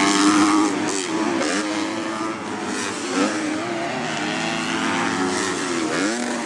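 Motocross bikes racing past, several engines at once, their pitch rising and falling as the riders rev and shift.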